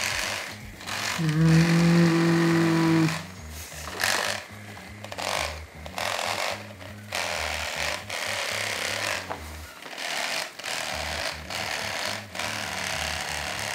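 Mini percussion massage gun running with a fast hammering buzz that pulses unevenly. It gives a louder steady hum from about one to three seconds in. It hits harder when pressed into the muscle.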